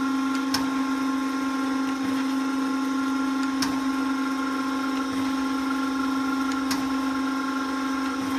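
Elliot 8-20 surface grinder running under hydraulic power, giving a steady hum with a sharp click about every three seconds as the table traverses.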